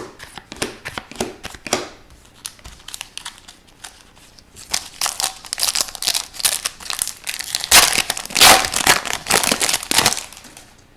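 Trading-card pack wrapper crinkling as it is handled and crumpled, after a few seconds of light clicking from cards being handled. The crinkling starts about five seconds in and is loudest near the end.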